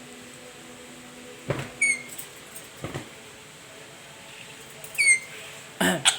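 Black-capped lory making short, high squeaky chirps, two of them about three seconds apart, with a few sharp clicks and a louder rough squawk near the end.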